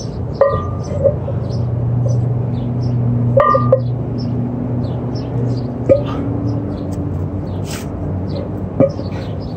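Steady low hum with faint chirping of small birds, broken a few times by short vocal grunts from a man exerting himself with a weight plate.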